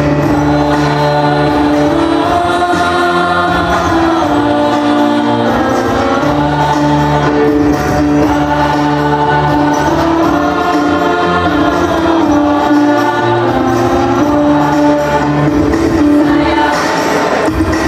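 Mixed choir of young male and female voices singing a lively song together, with sustained notes and a steady lower part underneath.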